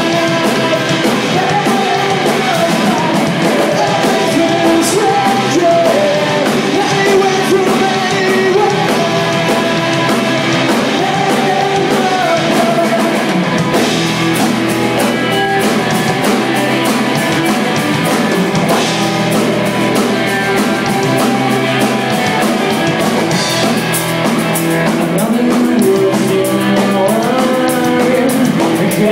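Live rock band playing a song: a singer over electric bass guitar and drum kit, loud and raw.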